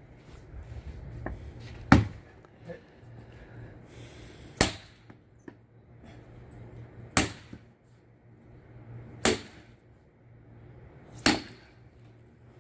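An axe splitting oak firewood logs: five sharp chops, one about every two to two and a half seconds.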